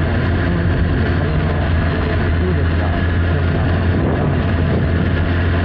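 Honda Hornet 900's inline-four engine running at a steady cruise while riding, with constant road and wind rush.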